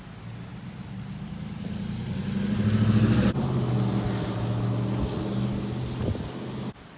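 A car's engine running with a steady low hum, growing louder over about three seconds, then changing abruptly and cutting off shortly before the end.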